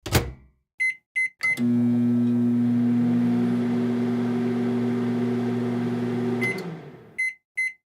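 Microwave oven: a thump, then three short keypad beeps, and the oven runs with a steady electrical hum and fan noise for about five seconds. It stops with a beep, followed by a run of end-of-cycle beeps.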